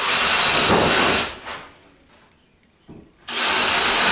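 Cordless drill boring pilot holes through a wooden 2x2 into a plywood tabletop: one run stops about a second in, and the next starts a little after three seconds in.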